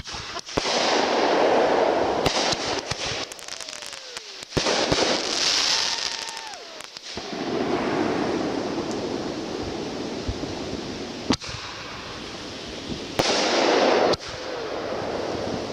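Consumer fireworks going off in a hand-fused show: sharp bangs from launching and bursting shells, between long hissing spells, with a few short falling whistles.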